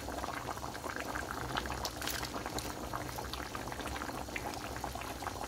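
Pot of beef pochero simmering, its tomato broth bubbling with a steady crackle of small pops, while a spoon stirs through the added cabbage leaves.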